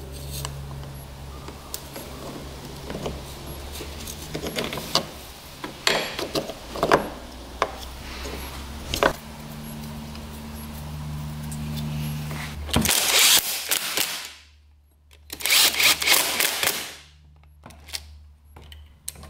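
Small metal clicks and taps as the stator plate of a Honda CR125 two-stroke engine is fitted into the engine case, over a steady low hum that stops abruptly about two-thirds in. Then come two loud rasping bursts, each about a second long, of a driver tightening the stator's screws.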